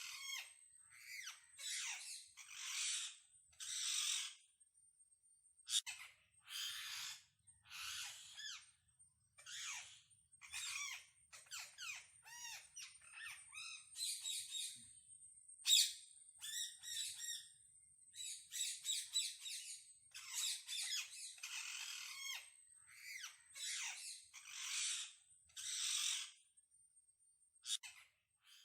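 Parrot calling over and over: harsh squawks and shorter chirping notes, each lasting about a second or less, with brief pauses between them.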